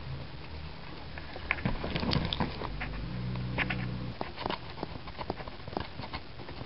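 Standard poodle mouthing and nibbling at a hand right by the microphone: a run of small clicks and snaps of teeth and lips. A low hum sits under it for the first few seconds.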